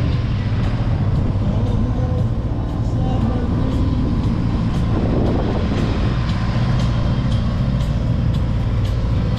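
Boat's engine running steadily under way, a constant low drone.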